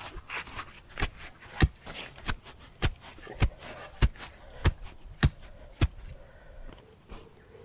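Earth and small stones being tamped down around the base of an upright wooden post, packing it firm: a steady run of about nine dull knocks, a little under two a second, that stops about six seconds in.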